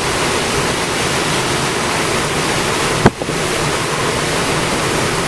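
Storm wind and heavy rain blowing steadily over the microphone, with a single sharp thump about three seconds in.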